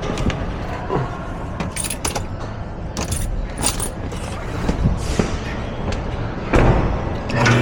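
A run of irregular metallic clinks, taps and knocks from metal objects being handled, several with a short bright ring.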